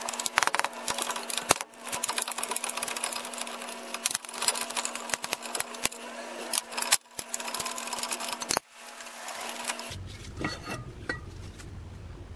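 A power tool running with a fast mechanical rattle while the brake caliper bracket bolts come off, with short breaks about 2, 7 and 8.5 seconds in, stopping about 10 seconds in.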